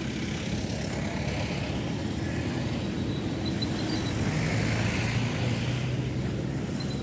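Road traffic on the street alongside: the steady hum of car and motorcycle engines and tyres, with one engine's drone coming up about halfway through.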